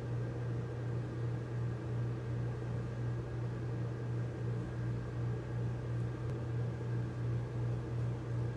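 A steady low hum with a faint hiss under it, holding the same level throughout, like a running appliance or fan in the room.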